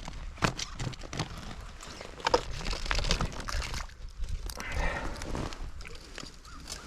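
Scattered knocks, clicks and rustling of fishing gear being handled, with a short pitched sound about two seconds in.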